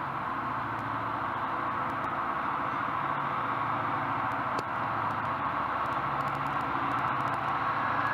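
Steady rushing background noise with a low hum underneath, continuous and unchanging, with no distinct events.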